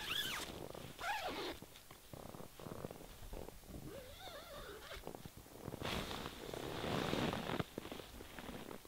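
Rustling and crinkling of sleeping gear and fabric as someone moves about inside a small tent, with a few short squeaks. The rustling is loudest for about a second and a half near the end.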